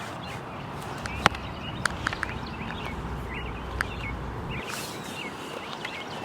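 Songbirds chirping repeatedly over a steady outdoor background, with a few sharp clicks about a second in and just after.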